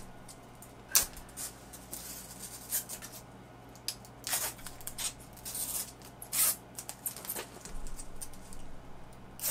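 Protective plastic film being peeled off a new computer monitor: soft intermittent crinkling and rubbing, with several louder short rips spread through.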